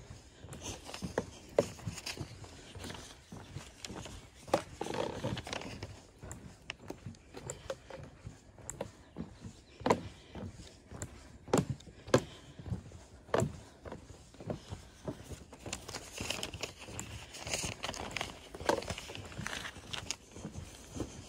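Footsteps walking along a trail: a series of short, sharp steps, roughly one every second or two, over a soft outdoor background.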